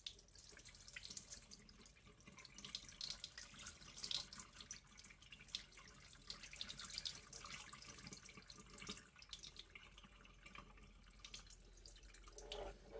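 Faint water trickling and dripping into a sink basin as onion-soaking water is drained from a glass bowl through a plastic strainer.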